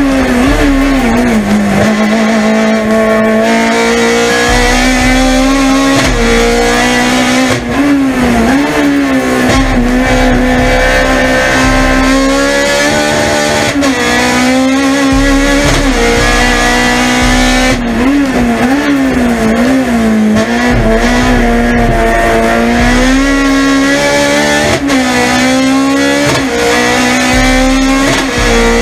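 Honda Civic EG race car's naturally aspirated 1.6-litre four-cylinder engine at high revs, heard from inside the cockpit. The pitch stays high, with quick dips and wobbles several times as the driver changes gear and lifts off.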